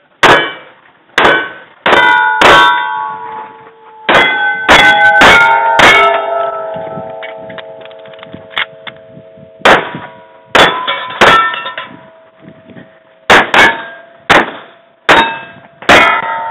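Kimber 1911 pistol firing a long string of shots in several quick bursts, with steel plate targets clanging and ringing on the hits. After the burst about six seconds in, one plate keeps ringing for several seconds.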